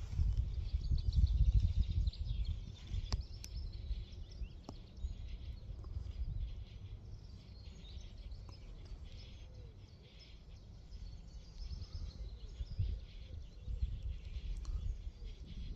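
Wind buffeting the microphone in gusts, strongest in the first few seconds, easing in the middle and picking up again near the end, with small birds chirping faintly behind it.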